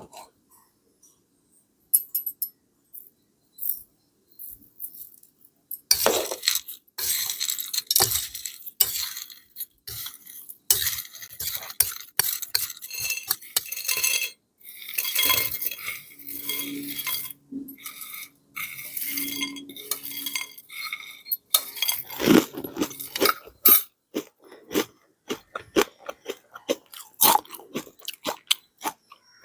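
Crisp peanut and raw-banana snack mixture being stirred in a dish, with pieces rattling and crunching and a spoon clinking against the dish. A few scattered clicks come first, then steady rattling from about six seconds in, with short pauses.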